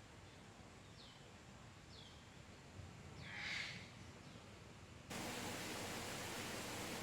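Bird calls: short falling chirps repeated about once a second over a faint outdoor hiss, with a louder call about three and a half seconds in. About five seconds in the sound cuts abruptly to a steady, louder hiss, like wind on the microphone.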